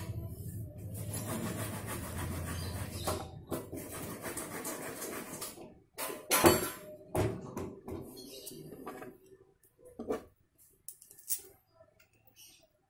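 Steel engine parts clinking and scraping as a motorcycle's magneto flywheel rotor is fitted by hand onto the crankshaft. A steady low hum runs through the first half, a sharp metallic clank about six and a half seconds in is the loudest moment, and scattered light clicks follow.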